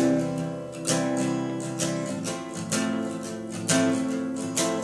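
Guitar slowly strumming a C major chord for the song's intro, changing to another chord partway through.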